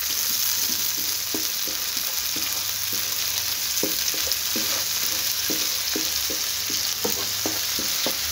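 Onions, ginger-garlic paste and tomato sauce sizzling in hot oil in a wok, with a spatula stirring and scraping the pan in short irregular strokes about once or twice a second.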